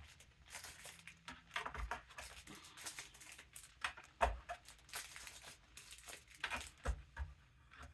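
Hard plastic thread-stand parts being handled and popped out by hand: a run of irregular clicks and rustling, with a louder knock or snap three times.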